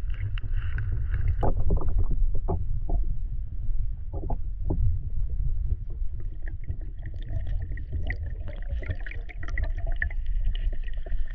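Steady low rumble of wind on the microphone, with a run of sharp splashing strokes in the first few seconds and many short high chirps in the second half.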